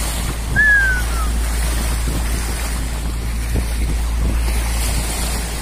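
Wind buffeting the microphone over the rush and splash of the bow wave along a moving boat's hull, with a steady low rumble underneath. About half a second in, a short whistle slides down in pitch.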